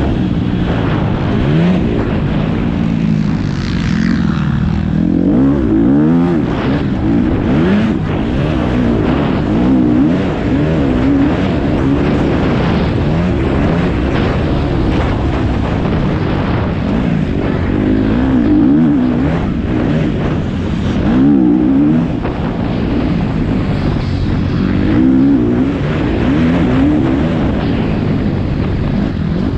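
Motocross dirt bike engine heard from an on-board camera, revving hard and repeatedly climbing and dropping in pitch as the rider works the throttle and shifts through the jumps and turns.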